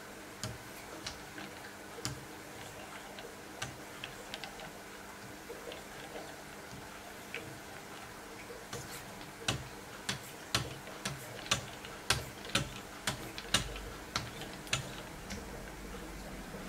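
Wicked Edge guided sharpener's hone paddles, faced with 6 micron lapping film, stroking a clamped Benchmade Nakamura 484 M390 blade from both sides. Each stroke gives a sharp tick as the hone meets the steel. The ticks are sparse and light at first, then louder and closer together, about two a second, for several seconds past the middle.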